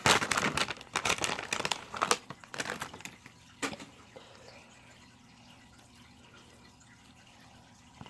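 Plastic squishy packaging crinkling and rustling as it is handled and opened, in quick crackly bursts that stop about three to four seconds in.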